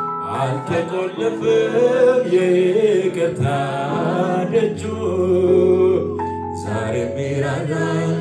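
A man singing a slow Amharic worship song into a microphone, holding long notes over sustained electronic keyboard accompaniment.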